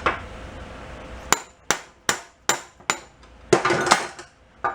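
Hammer striking metal on a stuck 1962 Honda Cub 50 engine's crank: five sharp blows about two and a half a second, starting about a second in, then a quick clattering flurry of knocks and one more blow near the end. The blows are meant to shock the jammed crank into turning.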